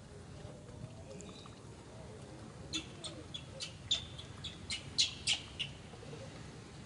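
A small bird chirping: about a dozen short, sharp, high chirps in quick succession over roughly three seconds, starting near the middle.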